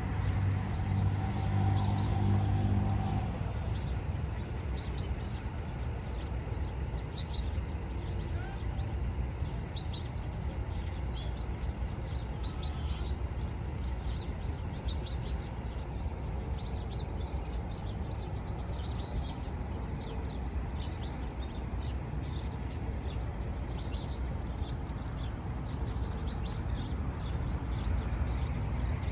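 Many small birds chirping busily over a steady low rumble of street traffic. A low droning tone stops about three seconds in.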